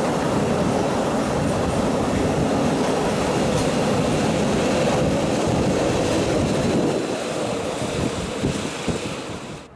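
Freight train of loaded double-deck car-transporter wagons rolling past, with a steady noise of wheels running on the rails. The noise drops about seven seconds in as the last wagons go by, and there are a couple of sharp knocks near the end.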